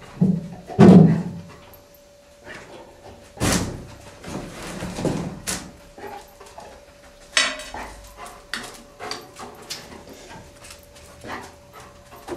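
Explosives detection dog searching a cluttered room: a couple of short, low dog vocal sounds in the first second, then scattered knocks and rustling as it works among boxes and objects, over a faint steady hum.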